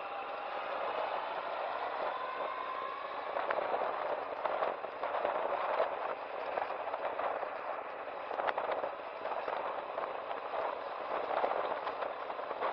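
Yamaha FJR1300 motorcycle riding along, its inline-four engine note rising over the first few seconds. The engine is then mostly covered by a rough, crackling rush of wind on the microphone and tyre noise, with scattered clicks.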